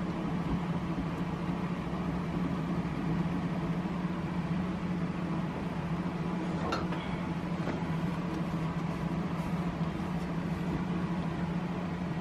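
iMac G3 running as it starts up, a steady low hum, with a single sharp click about seven seconds in.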